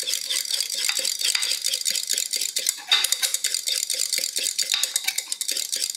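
Stainless steel wire whisk beating thick face cream in a glass beaker, clinking and scraping against the glass in fast, even strokes. The whisking stops right at the end.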